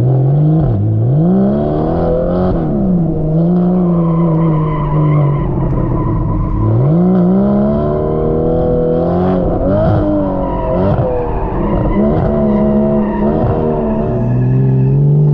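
Porsche convertible's engine revving up and down hard several times as the car is thrown around a track, holding steady between the climbs, with tyres squealing at times.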